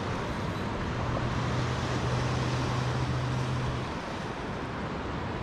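Wind on the microphone over surf on a shallow reef, an even rushing noise. A steady low hum sits underneath from about a second in until nearly four seconds in.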